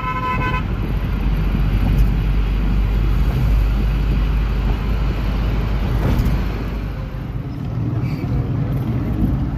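Steady low rumble of a car's engine and tyres heard from inside the cabin while driving. A vehicle horn gives one short toot at the very start.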